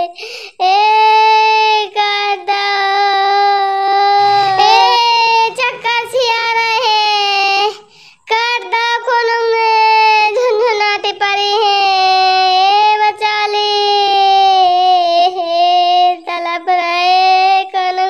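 A high-pitched voice holding long, drawn-out wordless notes with a slight wobble. It breaks off briefly about eight seconds in.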